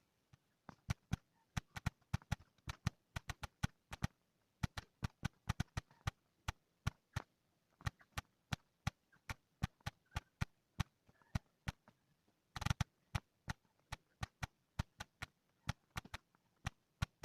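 Typing on an Android phone's on-screen keyboard: a run of short, sharp key clicks at an irregular pace of about two to three a second, with a quick flurry of clicks a little past the middle.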